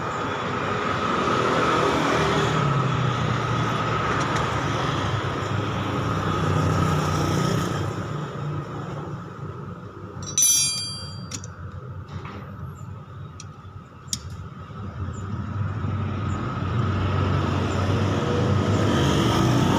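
Small two-stroke engine of a 1-inch Yamamaxpro irrigation water pump running on test, dropping to a lower, quieter speed about eight seconds in and picking back up near the end. A brief sharp high-pitched clink about ten seconds in.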